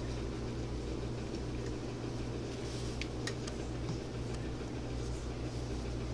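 Steady low hum, with faint crinkling and a few light clicks from paper towels being wrapped around steamed buns, most noticeable about three seconds in.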